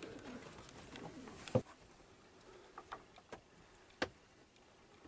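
Pigeons cooing faintly, followed by a few sharp knocks or clicks. The loudest knock comes about a second and a half in, and another near the end.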